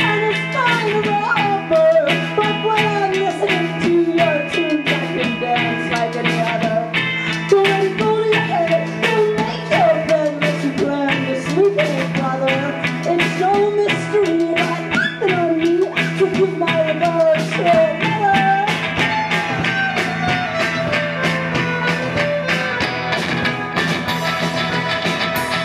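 Live indie rock band playing a song: a woman singing a wavering melody over guitar, violin and a steady drum beat.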